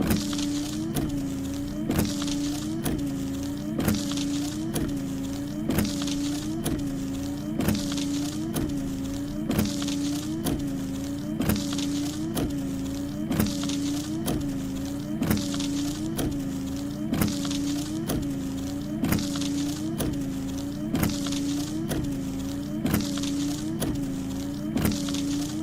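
A small motor running steadily, with short clicks repeating about twice a second and a slight dip in pitch with each click.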